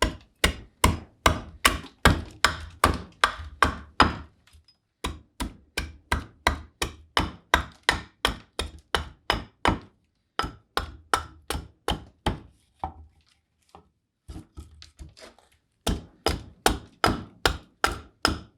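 Hatchet chopping green black walnut in quick, light, even strokes, about three a second, with a few short pauses; the cuts go across the grain.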